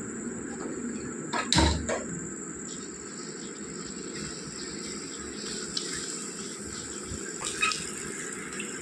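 Potato fries frying in hot oil, a steady sizzle. A few short knocks come about a second and a half in and again near the end.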